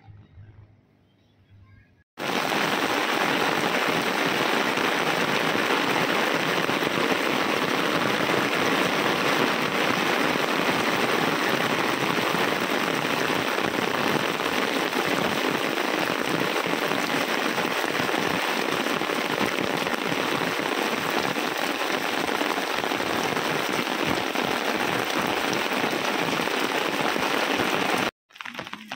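Heavy rain pouring down steadily: a dense, even hiss that starts abruptly about two seconds in and cuts off just before the end.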